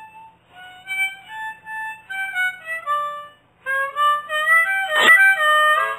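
A harmonica playing a slow melody in two phrases, with a short break a little past halfway. A sharp click sounds about five seconds in.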